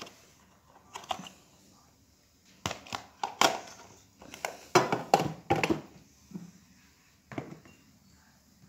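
A plastic basket still in its clear plastic wrapping being handled: the film crinkles and the plastic knocks in a run of short, sharp rustles, loudest in the middle.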